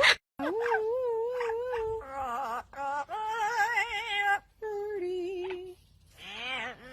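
An animal voice giving a series of about five drawn-out, wavering calls, each up to about a second and a half long, with short pauses between them.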